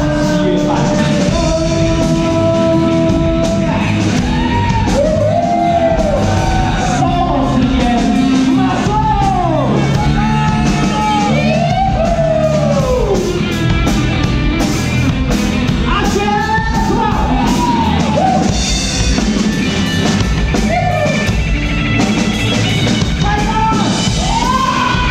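A live band playing a rock song: a male lead singer singing into a handheld microphone over electric and acoustic guitars, loud and continuous.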